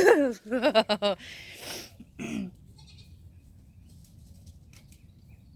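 Short wavering animal calls, bleat-like, in the first second, then a brief scratchy rustle and one more short call about two seconds in; after that only a low background.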